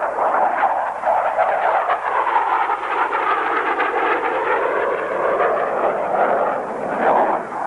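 Jet noise from the Grumman X-29's single General Electric F404 turbofan as the aircraft manoeuvres overhead. It is a steady, loud rushing sound whose pitch sinks in the middle and rises again.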